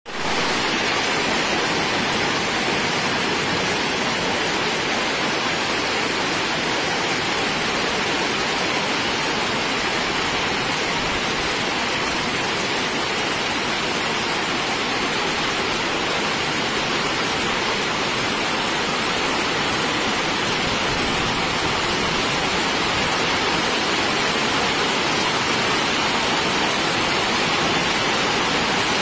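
Heavy rain pouring steadily over city rooftops: a loud, even hiss that keeps up without a break.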